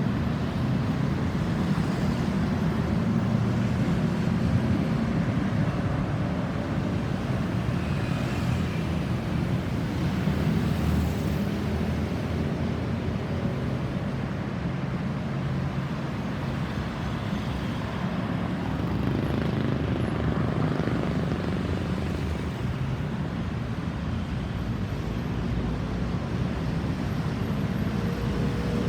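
Steady road traffic noise: the continuous rumble of cars and trucks passing on a road.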